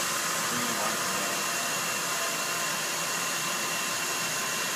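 The vacuum pump of a vacuum-forming machine running steadily as it draws a heated plastic sheet down onto the mould: a constant rushing noise with a thin high whine in it.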